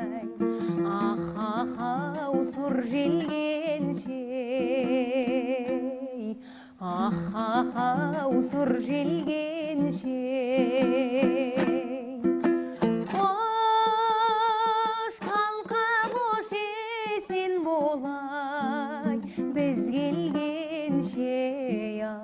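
A woman singing a Kazakh traditional song with a strong, wavering vibrato over a rhythmic plucked string accompaniment. A little past halfway the accompaniment thins under a long, high held note, then returns.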